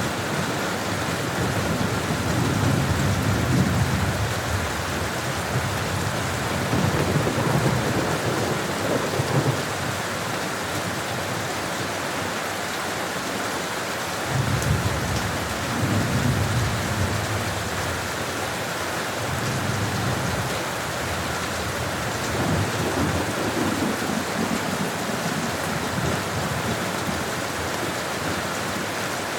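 Steady rain falling in an even hiss. Low rumbles swell up and fade away about five times.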